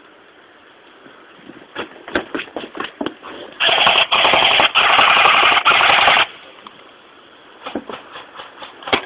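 Airsoft guns firing: scattered single shots, then a loud, close full-auto burst lasting about two and a half seconds, then a few more scattered shots near the end.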